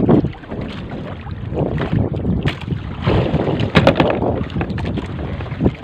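Wind buffeting the microphone and water lapping against a small fishing boat, with a few scattered knocks.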